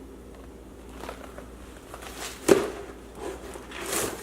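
Meal-kit packaging being handled and opened, with crinkling and rustling and one sharp knock about two and a half seconds in as something is set down.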